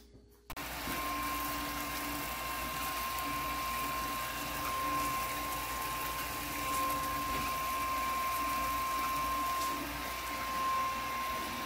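Small brewing pump running steadily with a constant high whine over a low hum, moving wort through hoses between the kettles during the transfer. It starts about half a second in.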